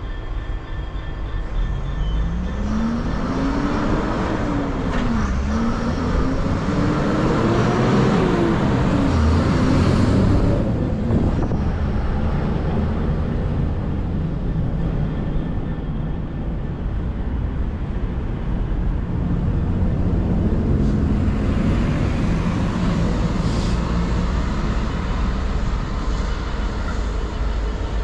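Diesel freight train working: the engine note rises and falls several times over dense rumbling wheel and rail noise, easing in the middle and building again near the end.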